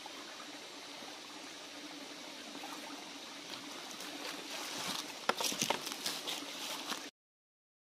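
Small forest stream trickling steadily over rocks, with a few sharp crackles and knocks in the last couple of seconds. The sound cuts off abruptly about seven seconds in.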